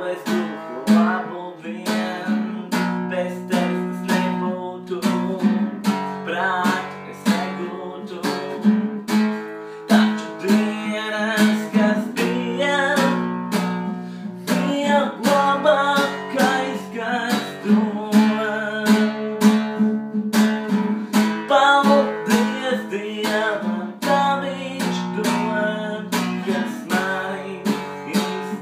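Acoustic guitar strumming chords in a steady rhythm, as music.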